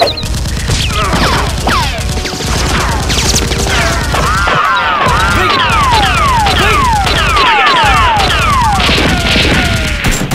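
Action-film gunfire sound effects: rapid automatic fire, overlaid with a long series of falling whistles like bullets whizzing past.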